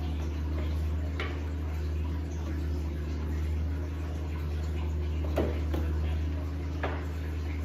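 Steady low hum, with three faint knocks spread through it.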